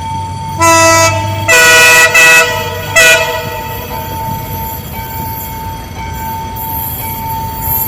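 Train horn sounding four blasts: one of about a second, then two longer, louder blasts back to back, then a short toot, all within the first three and a half seconds. A steady high whine and low rumble of the running train carry on underneath.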